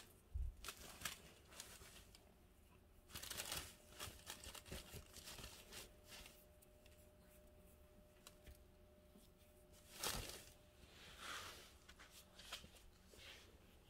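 Crinkly nylon lining of a cat tunnel rustling in short, scattered bursts as a ragdoll cat squirms around inside it.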